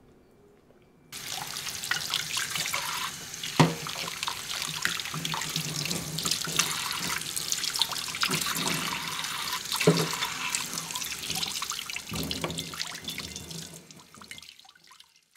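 Tap water running into a stainless steel kitchen sink and splashing on a plate as dishes are rinsed. It starts about a second in and stops near the end. A few sharp knocks of crockery and cutlery come through the splashing.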